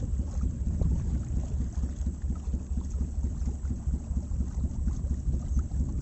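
Steady, fluttering low rumble of a boat under way on a river, with wind buffeting the microphone.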